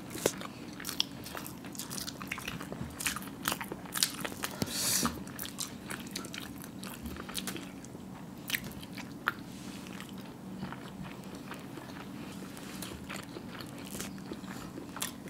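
Eating hard-boiled eggs coated in spicy masala: scattered soft bites, chewing and wet mouth sounds, with small clicks from fingers and eggs in glass bowls of sauce, over a faint steady low hum.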